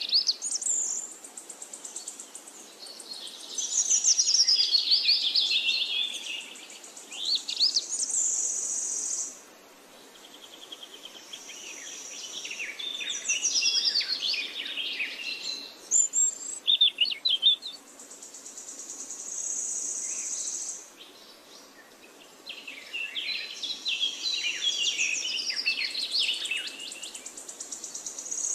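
Birds chirping and singing in quick, warbling phrases, over a high, steady insect-like buzz that comes and goes in stretches of several seconds.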